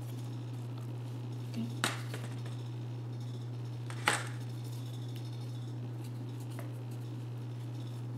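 Handling noises of floral tape being wrapped around a paper leaf's wire stem: two brief sharp clicks, about two and four seconds in, over a steady low hum.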